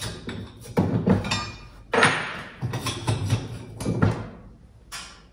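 Steel Alaskan chainsaw mill frame clanking as its support is slid out along the rails. It gives a series of metal knocks and scrapes with a short ring after each, the loudest about two seconds in, thinning out near the end.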